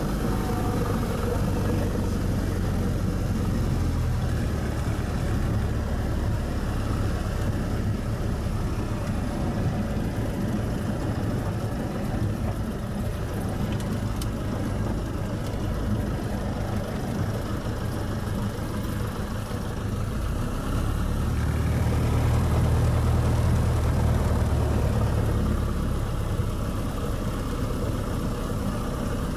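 Cessna 152's four-cylinder Lycoming engine running at low power, idling the propeller as the plane taxis, heard from inside the cabin. It grows louder for a few seconds about two-thirds of the way through, then settles back.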